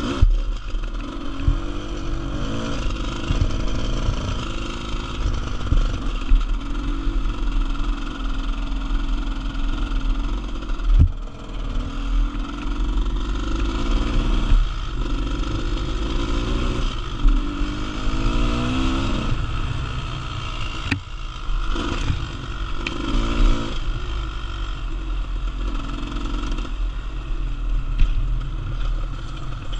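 GasGas EC300R's 300cc two-stroke single-cylinder engine under riding load on a dirt trail, its revs rising and falling repeatedly with the throttle. Occasional sharp knocks punctuate it, the old-bike knocking the owner puts down to a badly worn chain striking the side-stand mount.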